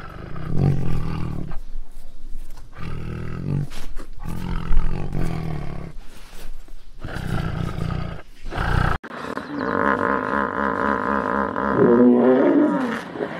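Tigers roaring and snarling in a series of deep, repeated calls. About nine seconds in, the sound switches abruptly to hippopotamus calls: a pitched, wavering bellow that dips and rises.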